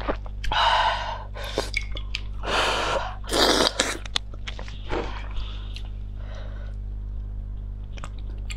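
Wet slurping and chewing of spicy enoki mushrooms pulled from chili-oil broth: several loud slurps in the first four seconds, then quieter chewing with small crunches.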